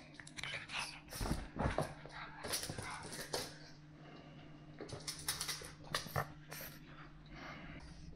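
Pug puppy making short, irregular noisy vocal sounds in bursts while tugging at a fabric rope toy.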